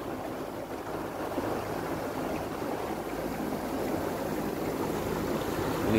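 A small boat's engine running steadily under way, with water rushing and splashing along the hull.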